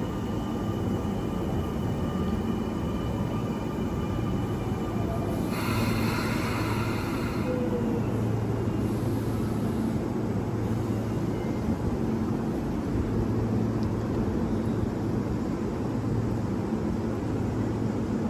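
Sagami Railway 8000 series electric train at a station platform: a steady low rumble and hum, with faint whining tones that die away in the first few seconds. A hiss lasting about two seconds comes about five and a half seconds in.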